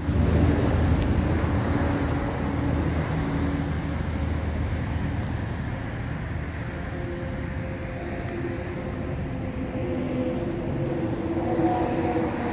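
A large vehicle engine idling steadily: a low hum with a few steady tones that shift slightly in pitch.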